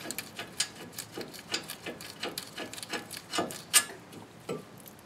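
Irregular run of short metallic clicks and rasping from a socket ratchet backing out the brake caliper mounting bracket bolts, with a couple of louder clicks near the middle.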